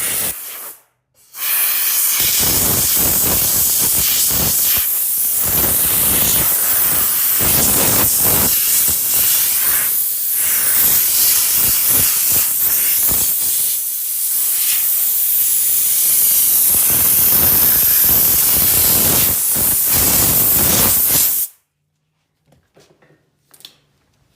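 Compressed-air blow gun blasting debris off a chainsaw bar. There is a short burst, a pause of about a second, then about twenty seconds of loud, wavering hiss that cuts off suddenly near the end.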